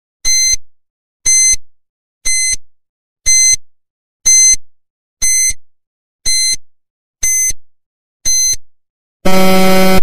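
Countdown-timer sound effect: a short, high electronic beep once a second, nine beeps in all. Near the end, as the countdown runs out, a longer, louder and lower buzzer sounds.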